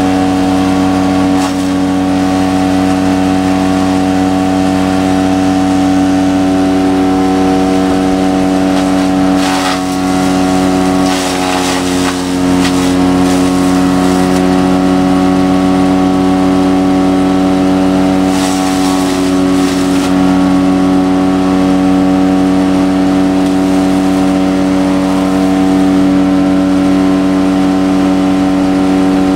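Toro wood chipper's gasoline engine running steadily at speed, with a few short rougher, noisier stretches about a third and two-thirds of the way through as branches are fed in and shredded.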